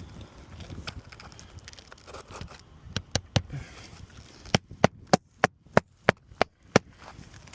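Hammer driving roofing nails into asphalt shingles: three quick taps about three seconds in, then a steady run of about eight sharp blows, roughly three a second.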